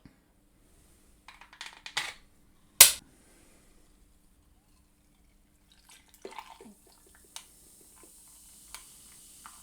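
3D-printed plastic bottle and its pop-off cap being handled: a few light clicks, a sharp knock about three seconds in, then scattered small clicks. Near the end comes a faint steady hiss of liquid.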